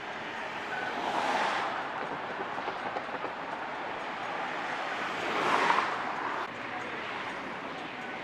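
Freeway traffic passing: steady road and tyre noise, with a vehicle going by about a second in and a louder one swelling and fading around five to six seconds in.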